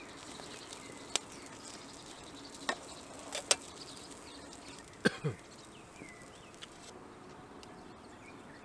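Wood campfire crackling quietly under a steady low hiss, with a few sharp pops in the first five seconds.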